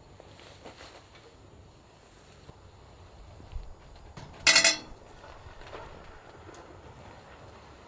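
A soft knock, then a single sharp clink of cookware or tableware that rings briefly, over quiet background hiss.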